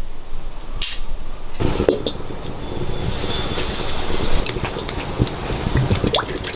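Wet squelching and slapping as chicken drumsticks are squeezed and turned by hand in a thick marinade in a steel bowl, full of small sticky clicks. It gets much louder about a second and a half in.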